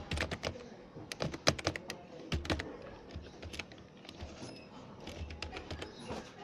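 Typing on a computer keyboard: a run of irregular key clicks, several a second.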